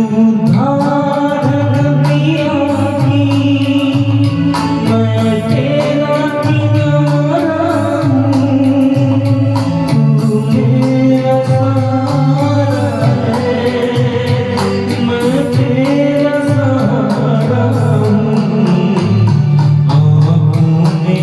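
A Hindi film song: a voice singing long, held notes over instrumental accompaniment.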